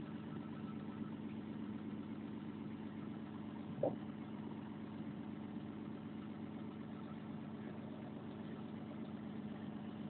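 Volvo 360 excavator's diesel engine idling steadily, a low even hum, with one brief short sound about four seconds in.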